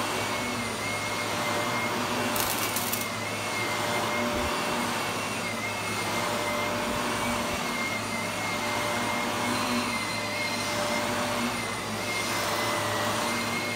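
Bagless upright vacuum cleaner running on carpet, a steady motor whine that wavers slightly as it is pushed back and forth. A brief crackle about two and a half seconds in.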